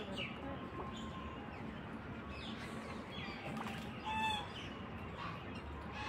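A few short bird calls, the clearest about four seconds in, over a steady background noise.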